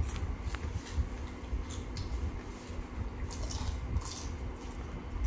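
Crisp fuchka (panipuri) shells cracking and being eaten, with a few brittle crunches and wet, squishy chewing over a steady low rumble.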